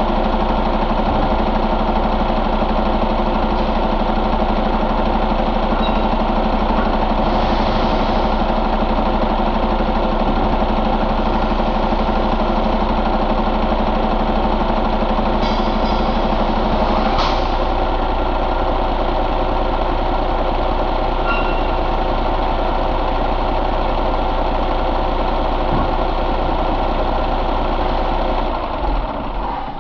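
Cummins ISX15 inline-six diesel truck engine idling steadily. The sound drops away shortly before the end.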